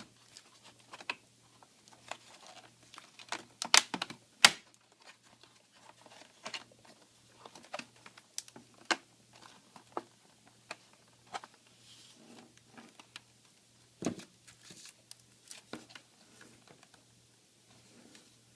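Irregular small clicks and taps of a tool and fingers working on a laptop's plastic bottom case, with a few sharper knocks about four seconds in and again near the middle.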